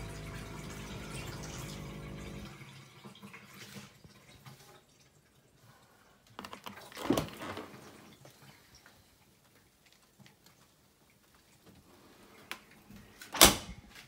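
Bosch dishwasher at the very end of its cycle: the pump motor hums steadily with water moving, then stops about two and a half seconds in. The door is opened about seven seconds in and shut with a loud thump near the end.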